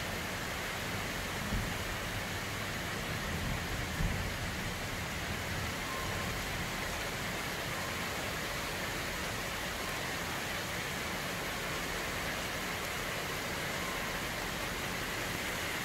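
Heavy rain falling steadily, a constant hiss, with two brief low bumps about one and a half and four seconds in.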